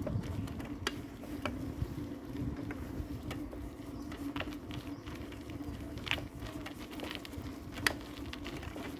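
A slow-moving vehicle rolling along a paved road: scattered light mechanical ticks and creaks over a steady low hum.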